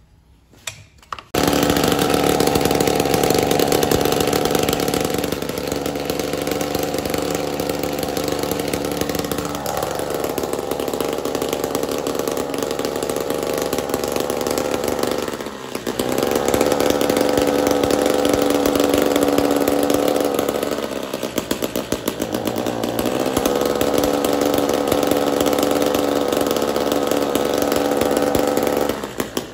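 Two-stroke brush cutter engine starting about a second in and running, held at high revs, then dropping back to a lower speed and revving up again several times.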